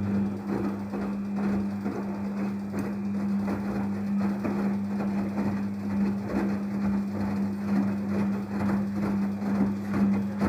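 Daewoo DWD-FT1013 washing machine running a quick 40°C wash: a steady motor hum with irregular knocks and swishes from the turning drum and laundry.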